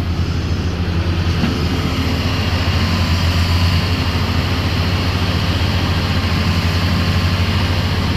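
Hitachi 270LC hydraulic excavator's diesel engine running steadily, a deep, even hum with a fast pulse.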